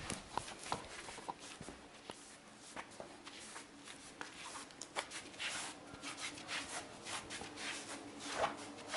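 Rubbing, scuffing and small irregular taps right at the camera's microphone, busier from about halfway through.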